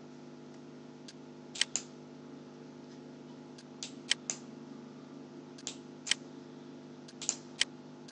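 Computer mouse button clicking about a dozen times, mostly in quick press-and-release pairs, over a steady low hum.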